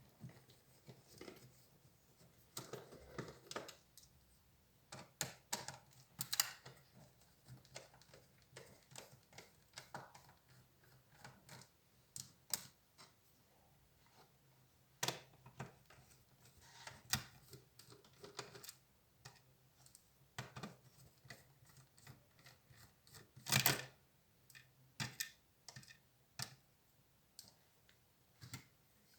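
Irregular small clicks, taps and short scrapes of HP Compaq 6910p laptop parts being handled and pried apart during disassembly, with a brief scraping stretch about three seconds in and a louder cluster of clicks near the end.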